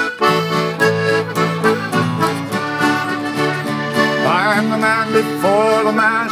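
Newfoundland folk band playing a song's opening: a button accordion leading over strummed acoustic guitars and a mandolin. A singing voice comes in about four seconds in.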